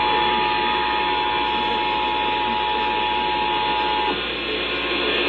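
Emergency Alert System two-tone attention signal (853 and 960 Hz) sounding steadily over radio hiss, cutting off about four seconds in, with only the hiss left after it.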